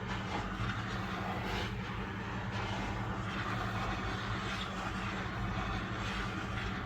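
Heat gun blowing steadily, a constant airy hiss over a low motor hum, used to warm the iPad's screen adhesive before it is opened.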